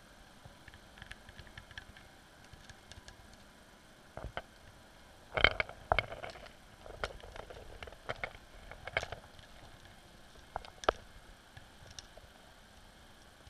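Irregular sharp clicks and knocks heard underwater, loudest in a quick cluster about five and a half seconds in, then scattered single clicks over a faint hiss.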